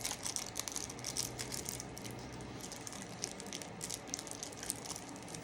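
Soft, irregular small clicks and rustles from candy being handled and eaten close by, with no speech.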